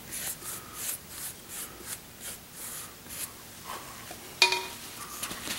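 Paintbrush scrubbing a thin black paint wash onto a PlastiDip-coated shield, a soft dry rubbing in short strokes of about three a second. A single sharp clink with a brief ring comes about four and a half seconds in.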